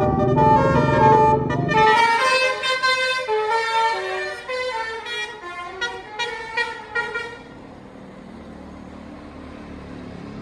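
A tour bus's basuri musical horn playing a quick melody of stepping notes, with the bus engine rumbling low under it for the first couple of seconds. The tune stops about seven and a half seconds in, leaving quieter road noise.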